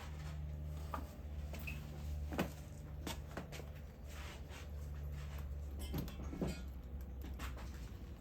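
Scattered light clicks and knocks of a motorcycle clutch cable being worked through the bike's frame by hand, over a steady low hum.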